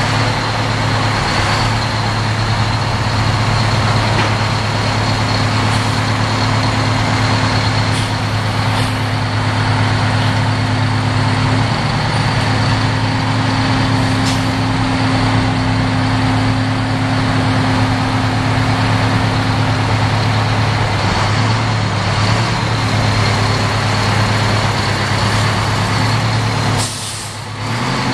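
FTF heavy truck's Detroit Diesel two-stroke engine running steadily under a loud, even note with a steady high whine over it, as the truck moves off. The sound dips briefly near the end.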